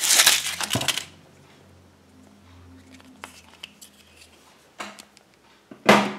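Foil wrapper of a Kinder Surprise chocolate egg crinkling and tearing loudly as it is unwrapped, stopping about a second in. Then soft clicks and rustles as the chocolate shell is handled and broken open, and one short loud rustle just before the end.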